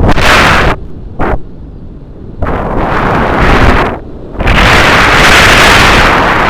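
Strong wind buffeting the microphone in gusts: loud blasts of rushing noise, dropping into short lulls about a second in and again around four seconds in.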